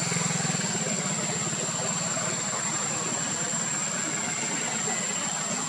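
A steady, even engine hum, like a motor idling, with a constant high-pitched whine over it.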